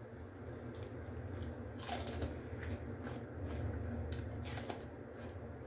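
A person chewing a crisp slice of raw bitter melon, with several short crunches spread through, over a low steady hum.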